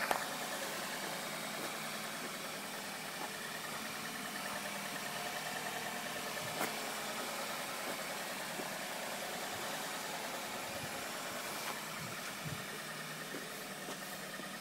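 2006 Nissan X-Trail's 2.5-litre four-cylinder engine idling steadily.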